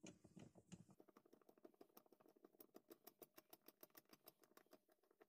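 Adjusting screw of an antique Fenton and Marsden monkey wrench being turned by its handle, the jaw sliding along: faint rapid clicking at about nine clicks a second, after a few soft handling knocks in the first second.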